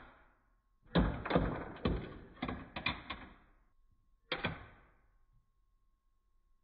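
Small plastic wrestling figure and plastic toy table clattering on a springy Mattel Knuckle Crunchers toy ring: a quick run of about eight plastic knocks and rattles, then one more knock about a second later.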